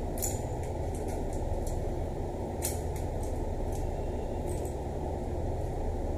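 Steady low rumble, with a few faint sharp clicks of small shower gate valve parts being handled and taken apart. The clearest click comes about two and a half seconds in.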